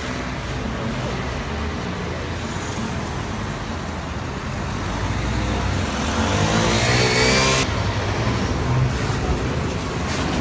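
City street traffic passing close by: cars, a motor scooter and a bus drive past. About six seconds in, a vehicle pulls away with a rising whine that stops suddenly a little later.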